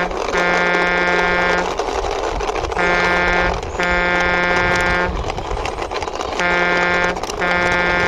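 Truck horn sound, a low buzzing honk given in pairs, a short blast then a longer one, three times over, above a steady background noise.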